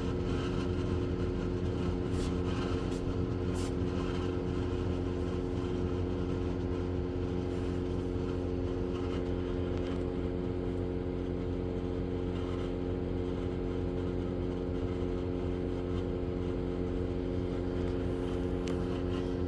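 A 12V under-bunk air conditioner running: a steady, even hum from its compressor and fans, with a few light clicks about two to four seconds in.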